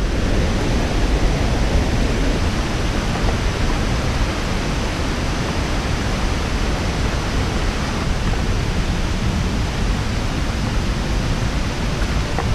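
Steady rush of a whitewater river cascading over boulders.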